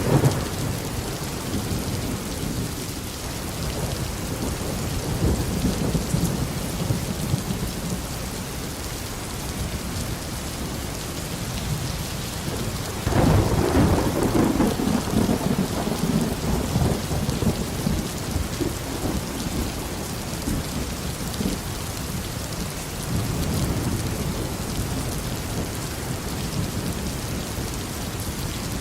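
Tropical rain falling steadily with rolling thunder. A rumble fades out in the first seconds, a sharper clap about halfway through rolls on for several seconds, and a softer rumble swells near the end.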